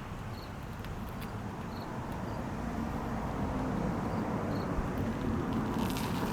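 Steady outdoor background noise, a low rumble with a hiss over it, with faint high ticks repeating a little under once a second.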